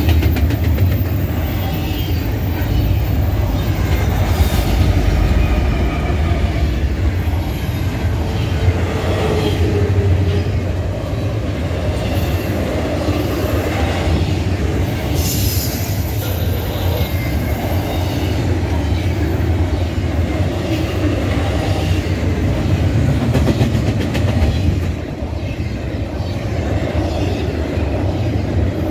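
Double-stack intermodal freight train's well cars rolling past close by: a steady heavy rumble of steel wheels on rail, with a couple of brief high screeches about 5 and 15 seconds in.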